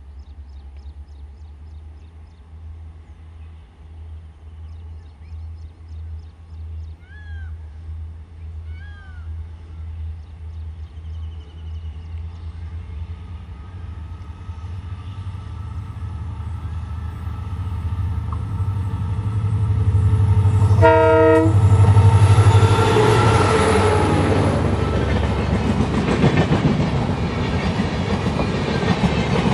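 WDP4D diesel locomotive's EMD two-stroke V16 engine throbbing steadily as it approaches, growing louder, with one short horn blast about two-thirds of the way in as it passes. Its coaches then roll by with wheel and rail noise.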